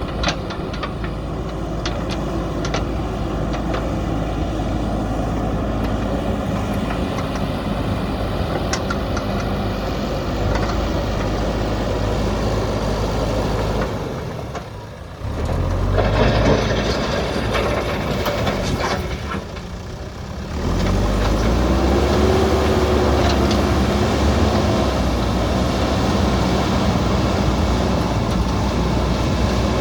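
JCB backhoe loader's diesel engine running under load, with a few sharp metallic clanks in the first seconds. The sound drops out briefly twice near the middle, then comes back louder as the engine revs up.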